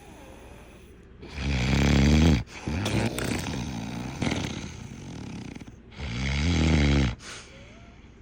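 Heavy snoring: two loud snores of about a second each, some four and a half seconds apart, with quieter breathing between them.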